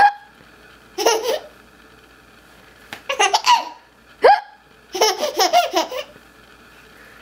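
A young child hiccupping and laughing at the hiccups: a sharp hiccup right at the start and another about four seconds in, with short bursts of laughter between them, the longest a run of quick giggles about five seconds in.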